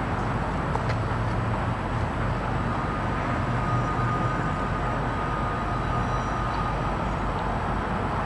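Steady outdoor background rumble and hiss. A faint thin tone of one pitch runs for a few seconds in the middle.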